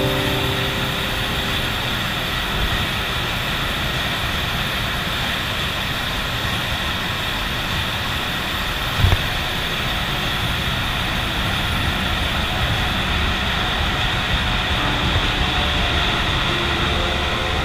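Machinery in a container ship's engine room running with a steady din, with one short low knock about nine seconds in.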